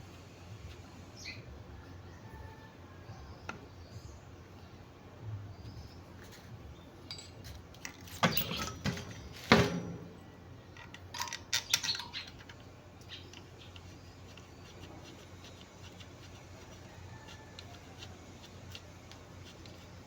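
Metal parts and tools clinking and knocking during alternator assembly: a few sharp metallic knocks about eight to ten seconds in, then a short run of clinks a couple of seconds later, with quiet handling between.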